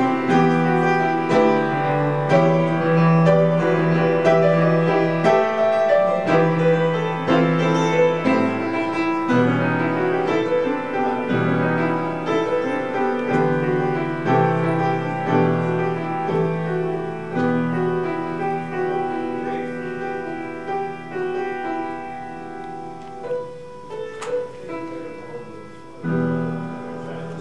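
Solo piano playing a slow piece of held chords. It grows softer a few seconds before the end, then a new chord is struck.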